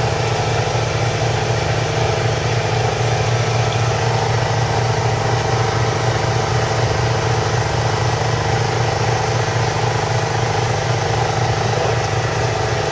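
An engine aboard a fishing boat running steadily: a constant low drone that holds the same pitch and level throughout.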